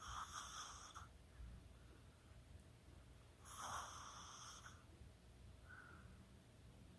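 Chihuahua snoring faintly in its sleep: two snoring breaths, one at the start and one about three and a half seconds later.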